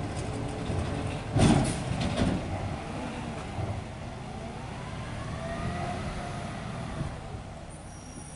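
Peterbilt 520 garbage truck with a McNeilus ZR rear-loader body pulling away, its engine running and fading as it moves off. A short, loud burst of noise comes about a second and a half in, a smaller one just after two seconds, and a faint whine rises and falls in pitch in the middle.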